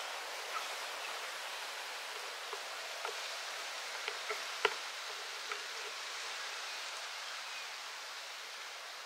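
Steady outdoor background hiss in open grassland, with a handful of small clicks or ticks through the middle, the sharpest about halfway through.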